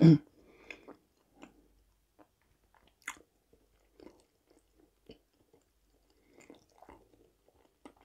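Close-up chewing of a chicken shawarma wrap: soft, wet mouth clicks at irregular intervals, with a sharper click about three seconds in. A brief voiced sound comes right at the start.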